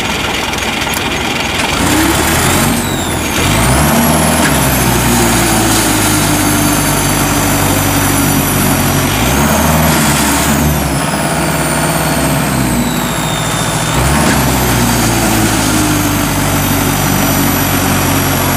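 Diesel engine of a loaded, flat-bottomed mud sled working hard in sticky paddy mud. Its revs climb a couple of seconds in, surge again around the middle and once more about two-thirds through, with a high whine gliding above the engine note.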